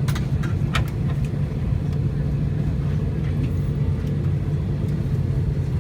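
Steady low hum inside an Airbus A320 passenger cabin, with a few light clicks in the first second.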